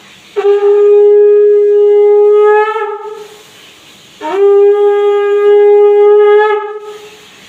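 Conch shell (shankha) blown twice in long, steady blasts, the ritual conch sounding of a Bengali Bhai Phonta ceremony. The second blast scoops up in pitch at its start.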